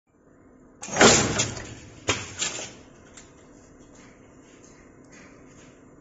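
Terminal crimping machine cycling twice, about a second apart: each stroke a sudden clack that fades over about half a second, the first louder and longer. A few faint ticks follow as the wires are handled at the die.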